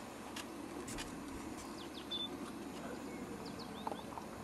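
Small birds chirping and whistling in short, scattered calls over faint outdoor background noise.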